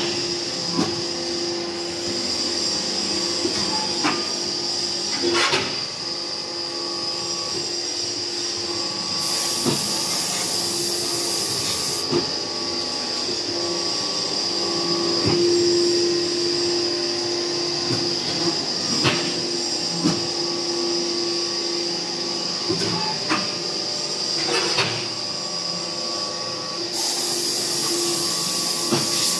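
ZC4-10 automatic interlocking compressed earth brick machine running: a steady motor hum with a high whine, and scattered metallic clanks and knocks. Two spells of hiss, each a few seconds long, come about a third of the way in and near the end.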